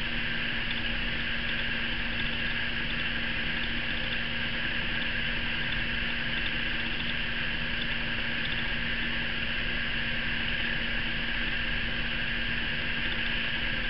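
Steady background hiss with a constant low hum, unchanging throughout, with no distinct events.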